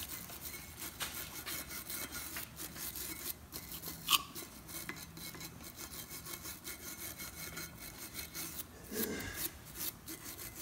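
Small wire brush scrubbing rust scale out of the pad-clip seats on a brake caliper mounting bracket, in quick back-and-forth scratching strokes, so the new clips will sit down tight. A short metallic clink about four seconds in.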